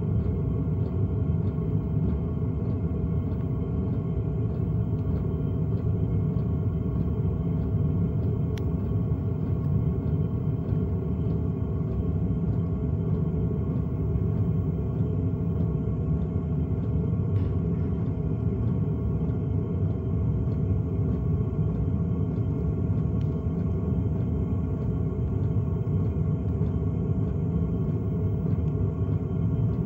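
LF Bros N2 Pro diesel air heater running at its 1.4 kW setting: a steady rumble with a regular faint ticking about twice a second, the clunking noise under investigation.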